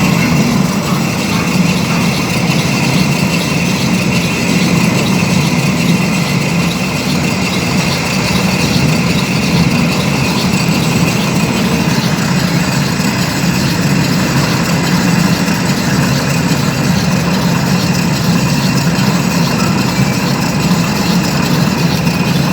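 Metal lathe running steadily under power, a constant low hum with a thin, steady high whine above it.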